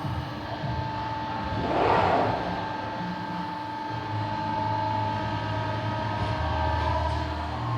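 Beyeler CNC press brake running: a steady machine hum with a short hissing rush about two seconds in, then a deeper drone from about four seconds in.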